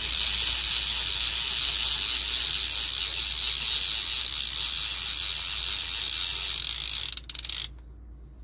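Okuma Magda Pro 20 DXT line-counter trolling reel being cranked fast, a steady ratcheting whir as braided line winds on, stopping about seven seconds in, followed by a brief burst of rapid clicking.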